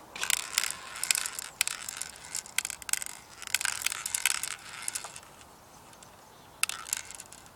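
Airsoft BBs rattling and clicking into an airsoft P90's magazine in irregular clusters, then a few sharp clicks near the end.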